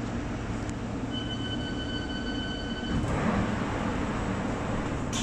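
London Underground District line train running, heard from inside the carriage as a steady rumble. A steady high tone sounds for about two seconds in the middle, the rumble grows a little louder about three seconds in, and a loud sudden burst of noise comes right at the end.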